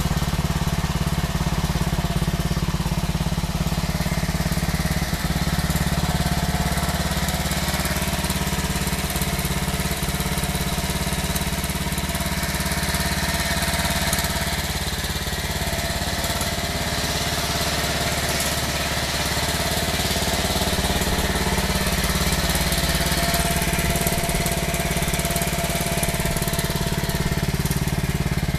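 1967 Aermacchi Harley-Davidson Sprint SS 250's single-cylinder four-stroke engine, bored out to take a 74 mm piston, idling steadily.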